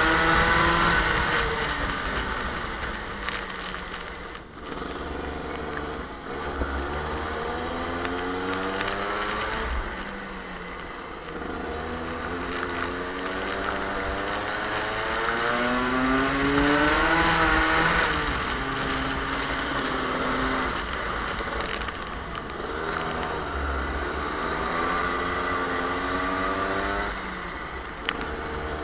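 Rotax two-stroke kart engine heard onboard, its revs falling into corners and climbing again down the straights several times, with the highest peak about two-thirds of the way through. A steady hiss of wind and wet-track spray runs underneath.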